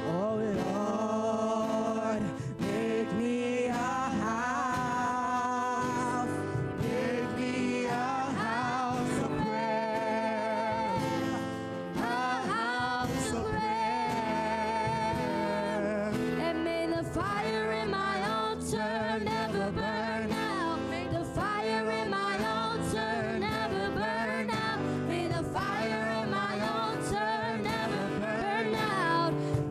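Gospel worship song: voices singing with vibrato over steady instrumental accompaniment.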